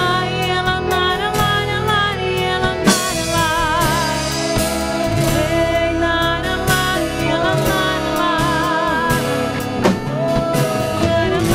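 Christian worship band playing: a sung melody with vibrato over guitar and drum kit, with a sharp drum hit about three seconds in and another near the end.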